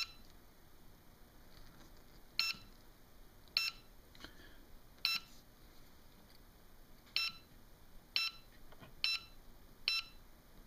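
Radio-control transmitter of a WLtoys V969 quadcopter beeping: about eight short, high electronic beeps at irregular intervals as its screen is pressed. The beeps mark the rudder trim stepping, because pressure on the screen and case shifts the trim to the left.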